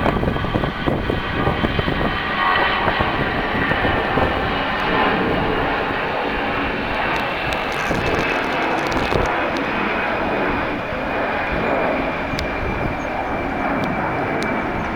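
Airliner's engines at close range: a steady rushing noise with a high whine that drifts slightly lower in pitch, starting and stopping abruptly.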